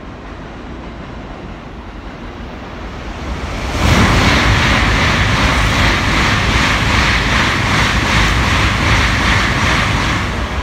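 A Tokaido Shinkansen train passing through the station at speed without stopping: a rushing noise that builds for a second or so, turns suddenly loud at about four seconds as the head of the train passes, stays loud and steady while the cars pass, then begins to fade near the end as the tail goes by.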